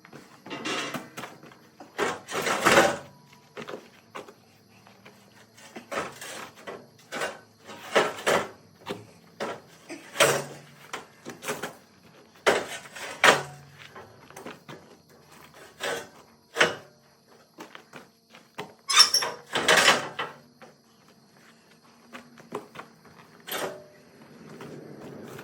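Steel pieces being handled and fitted together: irregular knocks, clanks and short scrapes of metal on metal, some a half-second long, with short pauses between them.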